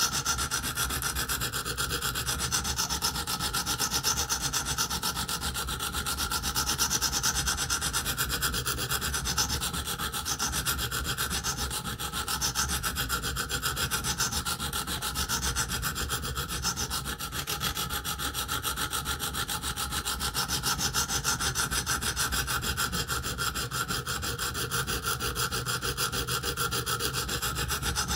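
Coarse 50-grit stone on a KME guided sharpening system scraping back and forth along an M390 steel knife edge in steady, continuous strokes, grinding metal away to remove a chip in the edge.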